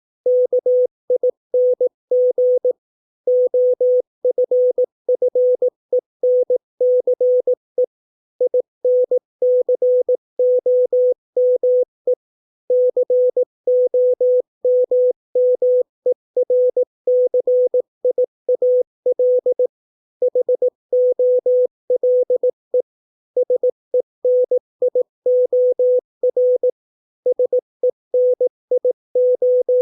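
Morse code practice tone: a single steady beep keyed on and off in dots and dashes at 18 words per minute, spelling out English words with short pauses between them.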